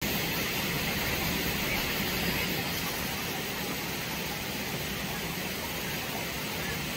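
Shallow stream running over rocks, a steady, even rush of water.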